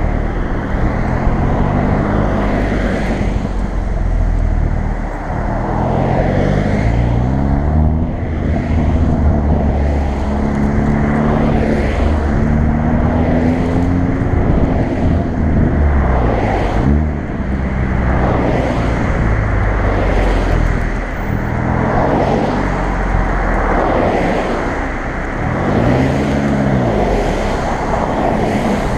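Hyundai i30 N's 2.0-litre turbocharged four-cylinder in N mode, repeatedly accelerating and easing off, with a quick rev up and down near the end. Sharp pops and crackles from the exhaust come through, mostly as the throttle lifts.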